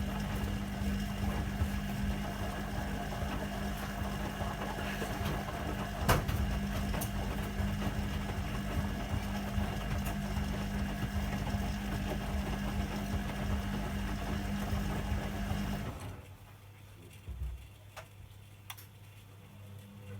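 Hoover Keymatic De Luxe 3243H washing machine's drum motor starting up and running with a steady hum for about sixteen seconds during a wash tumble, with one sharp click about six seconds in, then stopping.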